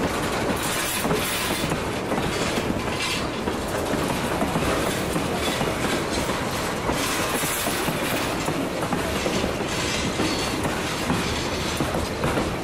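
Freight cars rolling past close by: a steady rumble of steel wheels with repeated clicking over rail joints.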